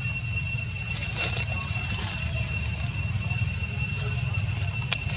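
Outdoor ambience: a continuous high insect drone on two steady pitches over a steady low rumble, with a faint click about a second in and a sharper one near the end.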